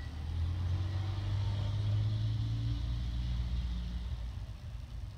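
Low engine rumble of a motor vehicle. It grows louder about half a second in and eases off again after about four seconds.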